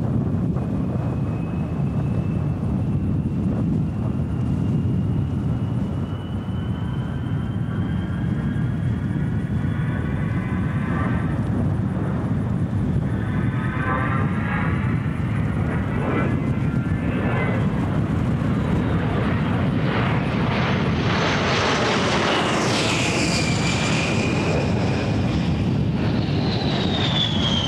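A-10 Thunderbolt II's twin TF34 turbofan engines running in flight: a steady rumble with a thin high whine that slowly rises in pitch. About two thirds of the way in, the whine grows brighter and sweeps down in pitch as the jet passes, and another falling whine follows near the end.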